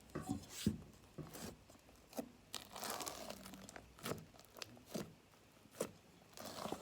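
Slime being handled and pulled out of its container: scattered crackly, tearing sounds and small clicks.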